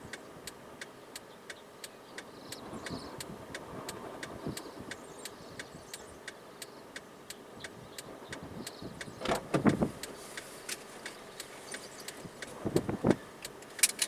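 Steady ticking about twice a second inside a car's cabin, typical of a flasher relay with the hazards or turn signal on. Two short, louder bursts of noise come about nine and thirteen seconds in.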